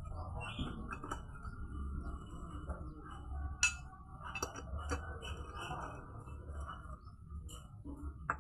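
Light metallic clinks and taps from hand tools and engine parts being handled during motorcycle engine assembly, with a few sharper clinks in the middle, over a low steady hum.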